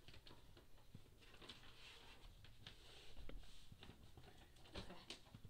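Faint paper rustling and soft handling clicks as the pages of a hand-drawn paper book are turned over.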